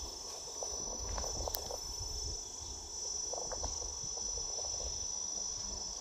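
Steady, high-pitched insect chorus droning without a break, with a few faint scattered clicks and a low rumble beneath.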